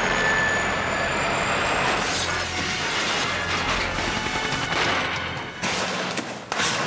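A helicopter crashing in a film stunt: a loud, continuous clattering, crashing din, with two sharp bangs near the end.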